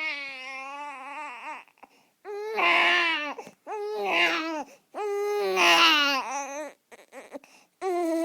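Infant crying in a run of wails, each about a second long, with short breaks for breath between them.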